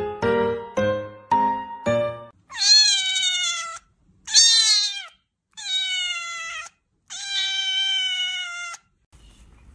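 A few keyboard notes of background music, then a kitten meowing four times, each meow long and drawn out.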